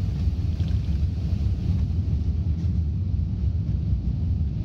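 Steady, deep rumble of an Airbus A380 heard inside the passenger cabin during its takeoff run: the jet engines and the wheels on the runway.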